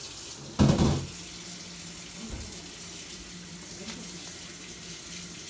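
Water running steadily from a tap, with one loud thud a little over half a second in.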